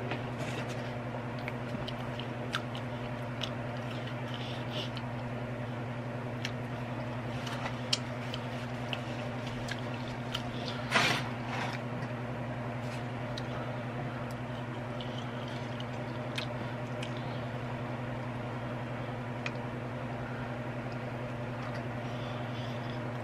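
Close-miked eating sounds: chewing fries and a cheeseburger, with small mouth clicks and one brief rustle about 11 seconds in, over a steady low hum.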